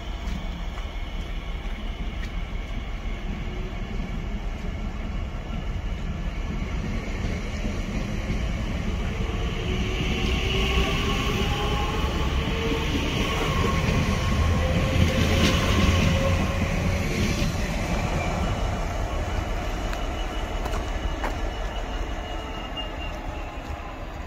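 A train running past, building to its loudest about halfway through and fading toward the end, with a rumble underneath and whining tones that slide slowly in pitch.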